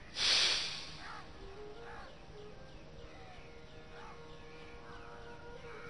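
A forceful breath blown out close to the microphone, lasting under a second: the exhale that empties the lungs before the belly is drawn in. Birds call in the background.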